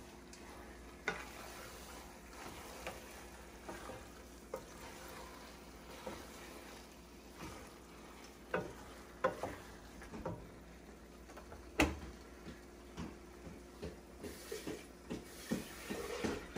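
A spoon stirring egusi soup in a cooking pot: irregular clicks and scrapes against the pot, busier in the second half, with one sharp knock about twelve seconds in, over a faint sizzle from the pot.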